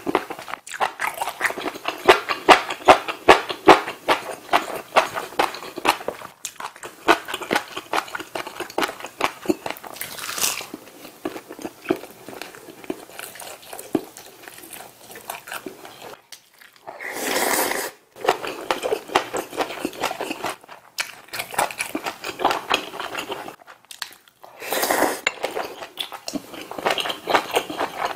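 Close-miked mouth eating: wet chewing of spicy sausage stew and bean-sprout bulgogi, a rapid run of smacks and clicks. Twice, about two-thirds through and again near the end, a short noisy rush of air.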